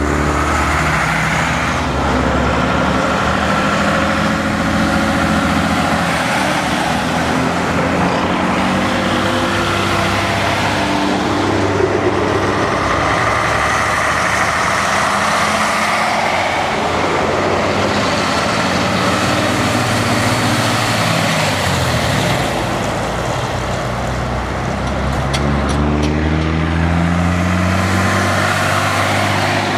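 Vintage diesel trucks driving past one after another, their engines pulling hard with the pitch shifting through gear changes. The sound eases off briefly after the middle, then the next truck's engine builds up again near the end.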